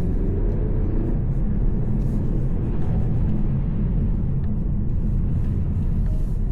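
VW T-Roc driving: a steady low rumble of engine and tyres, with a faint rising engine note in the first second.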